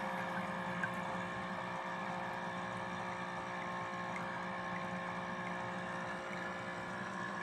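Bartesian cocktail maker's internal pump running with a steady hum after the drink has finished pouring, with one faint tick about a second in.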